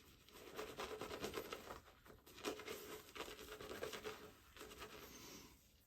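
Double-edge safety razor with a Blue Star blade scraping through lathered stubble in quick, faint scratchy strokes.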